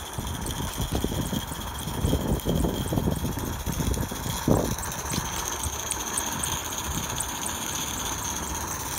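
Accucraft Dolgoch 16mm-scale live-steam locomotive running steadily along the track, with a light, regular ticking over a steady running sound and one sharp knock about four and a half seconds in.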